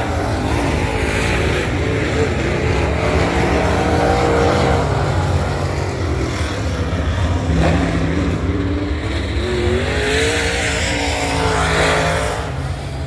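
Dirt Super Late Model race cars' V8 engines running as the cars pass on the dirt oval, the engine pitch rising and falling as they go by.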